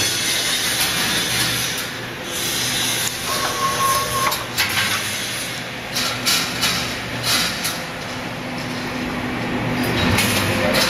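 Automatic wire mesh roll welding machine running: a steady hum under hissing noise, with irregular metallic clanks and a brief whine about three and a half seconds in.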